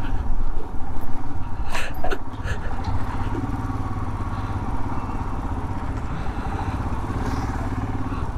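Royal Enfield Himalayan's single-cylinder engine running as the motorcycle rides along, louder in the first couple of seconds and then steady at cruising pace. A few sharp clicks about two seconds in.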